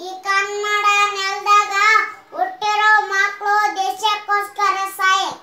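A young boy singing in a high voice, holding long steady notes in phrases, with a short break about two seconds in.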